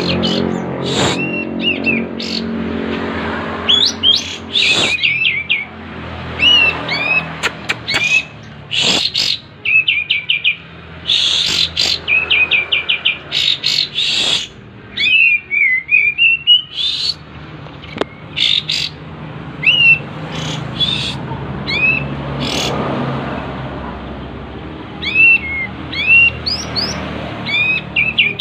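Kapas tembak songbird singing energetically, in breeding condition: repeated bursts of short, rising and falling whistled notes and quick chirp series. A low steady hum runs underneath, strongest near the start.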